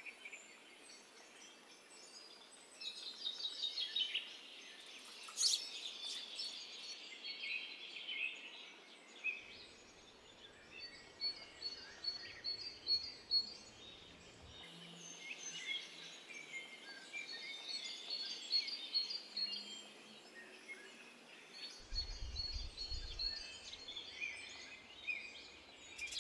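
Faint garden birdsong: several small birds chirping and singing in short repeated phrases over a quiet outdoor background that shifts abruptly a few times.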